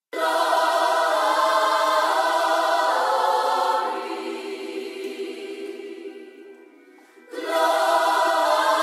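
Background music of sustained choir-like chords; it fades away over a few seconds and then swells back in sharply about seven seconds in.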